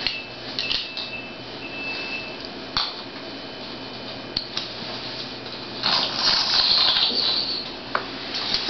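Light clinks and knocks of containers inside an open refrigerator as an animal moves about among them, with a stretch of rustling about six seconds in.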